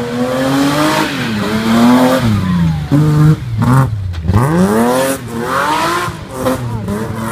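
Nissan Patrol off-road trial vehicle's swapped-in BMW M3 engine revving under load, its pitch rising and falling again and again, dropping low about four seconds in, then climbing back up.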